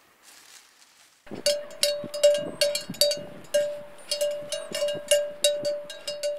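A single livestock bell clanking irregularly, about two to three strikes a second, each ringing on the same pitch. It starts a little over a second in.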